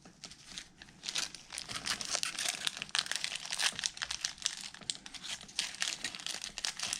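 Foil trading card pack wrapper crinkling as it is worked open by hand, with some tearing. The crackle starts about a second in and runs on irregularly; the pack is tough to open.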